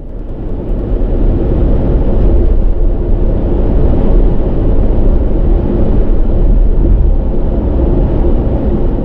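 A loud, steady low rumble, a dense noise strongest in the deep bass, starting abruptly.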